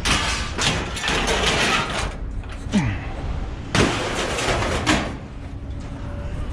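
Scrap metal scraping and clattering in long noisy bursts, with a brief falling squeal between them, over a steady low rumble.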